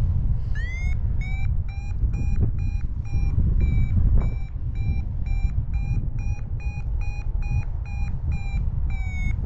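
Paragliding variometer sounding its climb tone: a rising first beep, then a steady run of short high-pitched beeps, about two to three a second, signalling that the glider is climbing in a thermal. Wind rushes on the microphone underneath.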